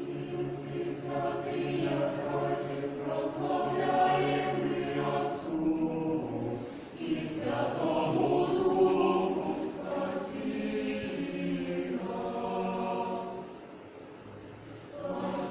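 Choir singing sustained phrases in harmony, with a short break about halfway through and a softer lull near the end.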